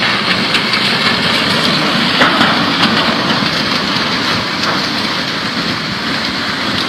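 Floodwater rushing: a loud, steady roar of moving water with faint scattered ticks and knocks.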